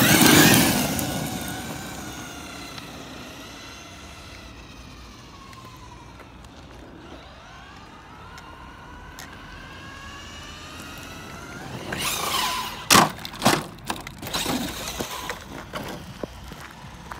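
Electric 1/8-scale RC monster truck, a Thunder Tiger eMTA, rushes past close by over gravel at the start, then its brushless motor whines, rising and falling in pitch as it drives off across the lot. About twelve seconds in comes a burst of sharp gravel crunches and knocks close by.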